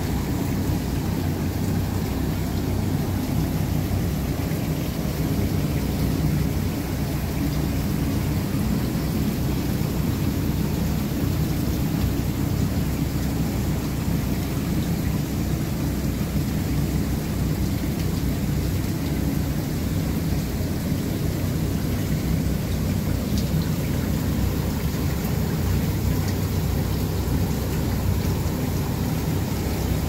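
Water cascading down through the fill of a 600-ton HVAC cooling tower and splashing into the basin below, a steady rain-like rush over a heavy low rumble.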